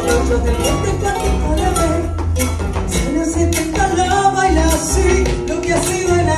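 Chacarera music: a woman sings the melody into a microphone over an accompaniment with a pulsing low beat.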